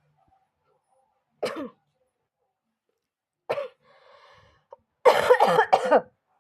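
A person coughing: a single cough about a second and a half in, another about two seconds later, then a quick run of several coughs near the end, the loudest.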